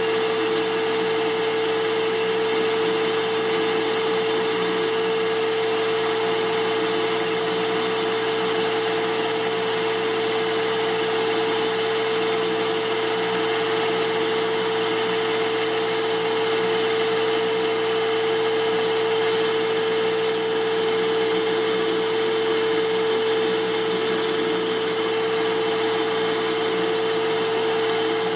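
Benchtop metal lathe running under an aggressive turning cut, about a quarter inch off the diameter of a metal bar. It makes a steady whine with one strong tone over an even machining hiss.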